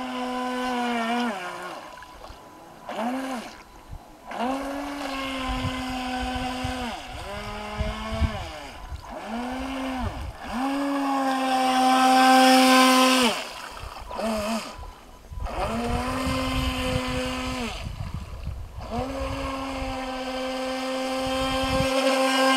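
Feilun FT007 RC speedboat's electric motor whining in repeated bursts as the throttle is opened and released, the pitch dipping and rising at each change. The loudest stretch is about halfway through, with a hiss of spray as the boat runs close by.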